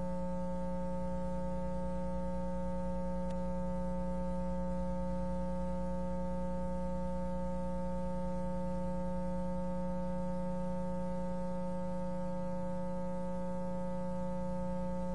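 Steady electrical hum on an old video soundtrack: a low buzz with a stack of higher overtones that stays unchanged in pitch and loudness throughout, with no other sound.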